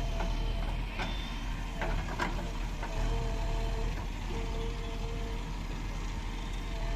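JCB 3DX Ecoxpert backhoe loader's diesel engine running steadily while digging, with a high tone that comes and goes over it and a few sharp knocks about one to two seconds in.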